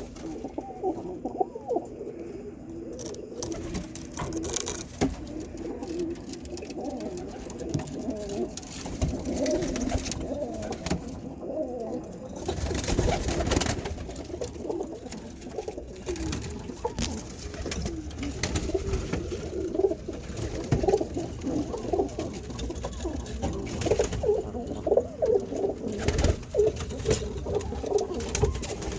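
Many Birmingham roller pigeons cooing at once in a loft, their low, wavering coos overlapping without a break, with scattered knocks and rustles over them.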